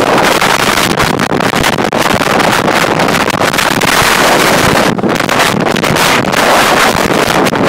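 Storm-force wind blasting across the microphone, a loud, rough rush that flickers with the gusts.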